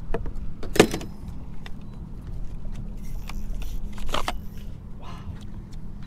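Handling noise on a fishing boat's deck: a sharp knock about a second in and another near the middle, with lighter clicks between, over a steady low hum.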